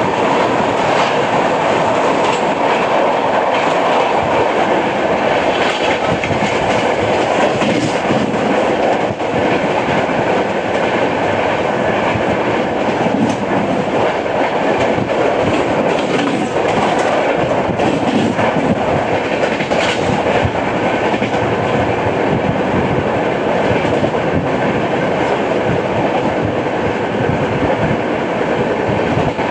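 Indian Railways express passenger train running at speed: a steady rumble of coach wheels on the rails with clickety-clack from the track. It carries the repeated knock of a flat wheel, a wheel worn flat in one spot.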